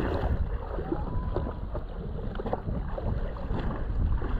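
Wind buffeting the microphone with a low, uneven rumble, over water lapping around a jet ski that is drifting at a mooring buoy.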